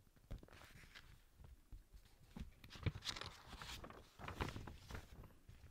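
Faint, irregular rustling and scuffing with a few soft knocks and clicks.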